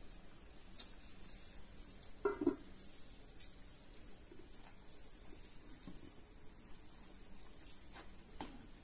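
Eggs frying faintly in a metal pan over a wood fire, under a steady high hiss. The metal lid clanks onto the pan about two seconds in, and light clicks follow near the end as the pan is handled.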